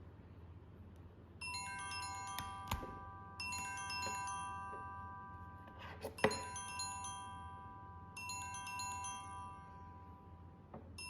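Smartphone ringtone: a bright, chime-like mallet melody that plays four times with short pauses, beginning about a second and a half in. Two sharp clicks fall between the tones.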